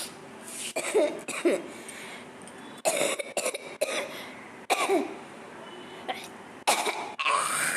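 A person coughing hard on purpose, in several short bouts of forced coughs spread across a few seconds.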